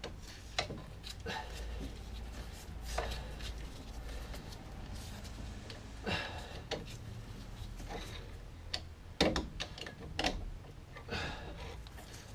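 Scattered clicks, scrapes and knocks of a 7mm Allen key working a brake caliper guide pin loose, with a few sharper knocks near the end.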